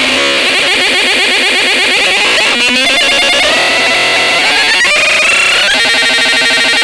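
Boombox Synth 2 electronic synthesizer putting out a dense, rapidly warbling mass of tones with no bass. The pitch sweeps about two and a half seconds in, and the sound settles into steadier held tones near the end.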